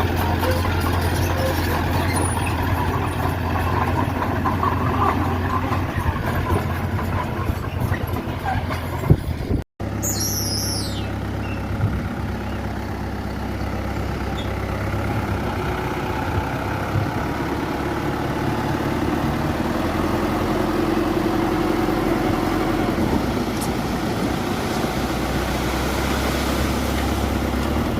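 Diesel engine of heavy earthmoving machinery running steadily under work. The sound drops out for an instant about ten seconds in and is followed by a short, falling high squeal. The engine note turns deeper near the end.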